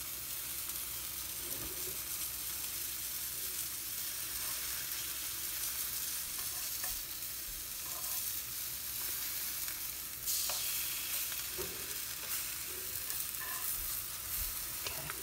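Flour-coated chicken breast pieces sizzling in hot oil in a frying pan, with a few faint clicks as the pieces are turned over. The sizzle grows louder about ten seconds in.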